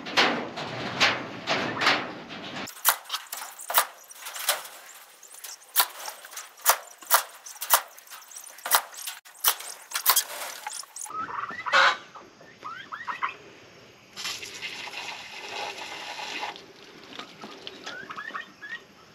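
A run of sharp, irregular clicks and knocks about two a second, then short rising calls from farmyard poultry (turkeys and chickens) in the second half, with a hiss lasting about two seconds between the calls.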